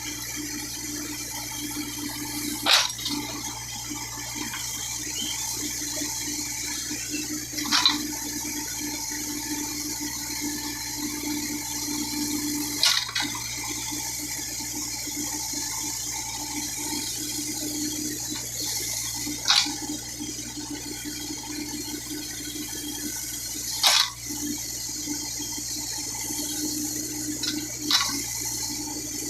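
Case 580K backhoe's diesel engine running steadily, with a sharp metallic clank from the machine every four to six seconds, seven in all.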